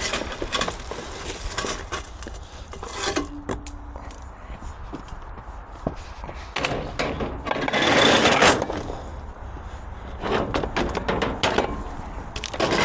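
Knocks, scrapes and clatter of scrap being shifted and stacked on a loaded truck, loudest in a long rattling scrape about seven to eight seconds in.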